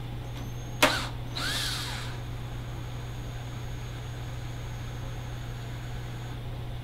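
A steady low hum, with one sharp tap about a second in followed by a short breathy burst like a cough or sniff.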